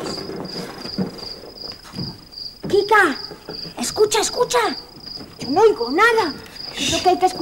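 A cricket chirping in a fast, steady, high-pitched pulsed trill, with short rising-and-falling pitched swoops over it in the second half.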